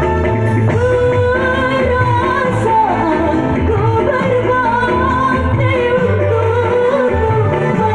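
A woman singing a slow melody with wavering held notes over an instrumental backing track with keyboard and bass. The singer calls her voice shaky from a cough.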